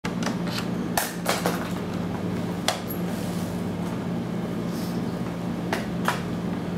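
Papers and a pen being handled: a handful of sharp taps and clicks with light rustling, over a steady low hum.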